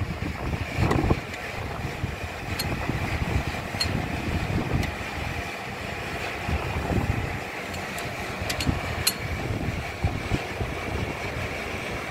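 Irregular low rumble of wind and handling noise on the microphone, over a faint steady hiss, with a few sharp, light clicks scattered through it.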